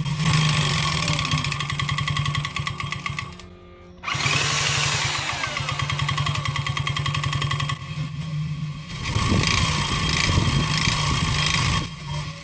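139QMB 50cc four-stroke scooter engine running with a rapid regular knock, its revs rising and falling with a few brief dips. The knock is piston slap from a piston skirt deliberately ground short in a loosely honed cylinder.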